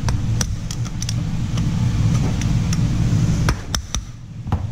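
Screwdriver prying at the metal clips of an air-conditioner fan motor's housing: scattered sharp metal clicks and scrapes over a steady low rumble. The rumble drops away about three and a half seconds in.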